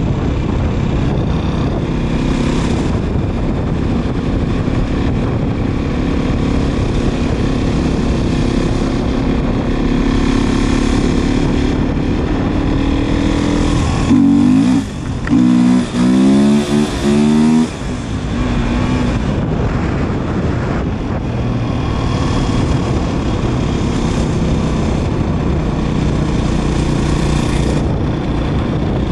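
Beta 500RR single-cylinder four-stroke dirt bike engine running at a steady cruise on pavement, with wind rushing over the microphone. About fourteen seconds in it gets louder and the engine pitch climbs four times in quick succession, dipping briefly between each climb as the bike accelerates up through the gears, then settles back to a steady cruise.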